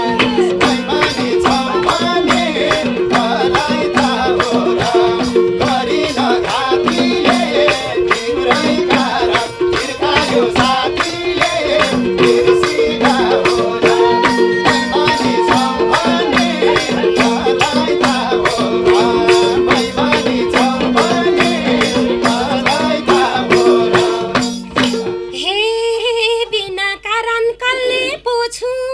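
Nepali dohori folk song: men singing over a fast madal drum rhythm with harmonium and fiddle accompaniment. About 25 seconds in the instruments stop and only voices are left.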